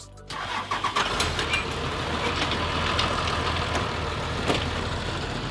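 A vehicle engine idling steadily, with a few sharp metal knocks and clanks over it.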